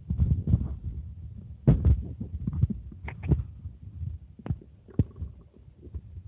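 Human stomach growling and gurgling as drunk water moves through it: a low rumble with bubbly gurgles, loudest in the first two seconds, then thinning into scattered sharp pops.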